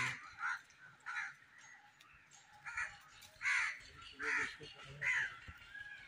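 Crows cawing: a string of short, harsh caws, about seven of them, repeated every half second to a second.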